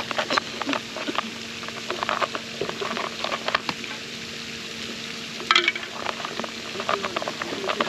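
Irregular crackling and rustling of hands working fishing bait mix, with a louder burst of crackles about halfway through. A faint steady hum runs underneath.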